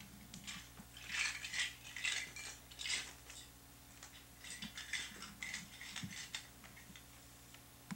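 Crinkling and rattling in two bouts, from about a second in and again around five seconds, as a toddler's hands rummage inside an opened cardboard present box.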